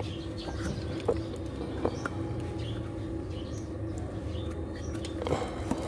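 Steady low hum with a few brief clicks, about one and two seconds in, and faint bird calls in the background.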